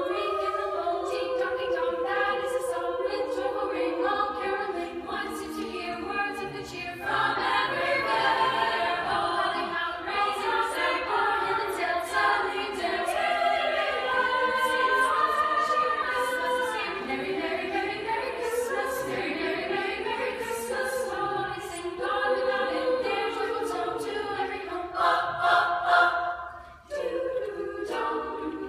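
Women's choir singing in sustained, blended chords, with the sound dropping out briefly near the end before the voices come back in.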